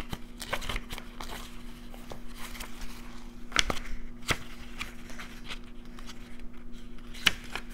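Quiet handling of an oracle book: a few sharp clicks and soft rustles, the clearest a little before the middle and near the end, over a steady low hum.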